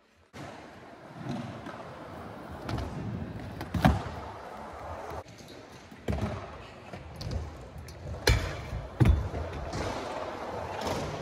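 Freestyle scooter rolling over skatepark ramps and concrete, with several sharp impacts from the scooter's landings. The loudest comes about four seconds in, and two more come close together later on.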